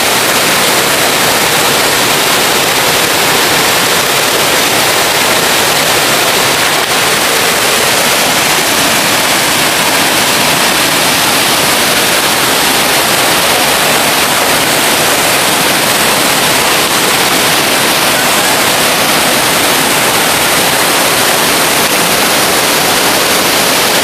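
Waterfall pouring into a plunge pool: a steady, loud rush of falling water.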